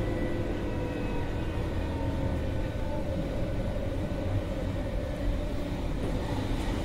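Berlin U-Bahn class H train heard from inside the car: a steady running rumble from wheels and running gear with a faint motor whine, as the train runs in from the tunnel and slows into a station.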